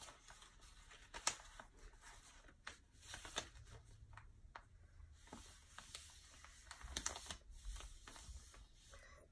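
Sheet of paper being folded and creased by hand: faint, irregular rustles and crinkles, with a few sharper paper snaps.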